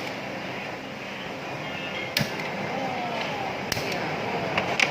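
Busy eatery ambience: a steady hubbub of background voices and clatter, with three sharp clinks of tableware spaced about a second apart.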